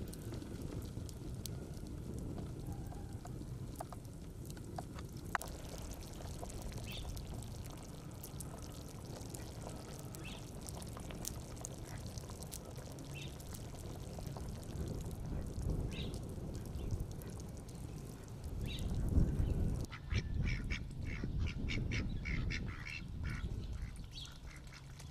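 A wood fire crackling with scattered sharp pops over a steady low rumble. From about twenty seconds in, domestic ducks quack in a quick run of calls.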